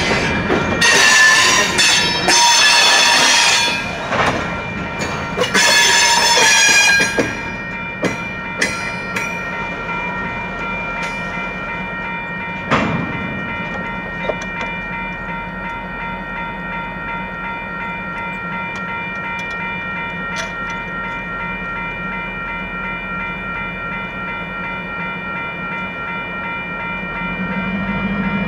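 Diesel freight locomotive horn blowing two long blasts in the first seven seconds, then freight cars rolling slowly over a grade crossing with a few sharp clanks, over a steady high ringing tone.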